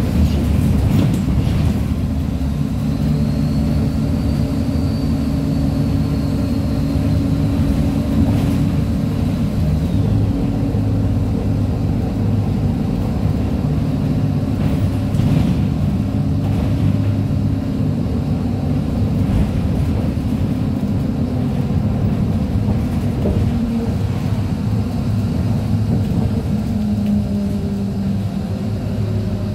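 Inside a MAZ 103.485 city bus under way: its Mercedes-Benz diesel engine and Allison automatic gearbox run steadily, with road noise and a few knocks from the body.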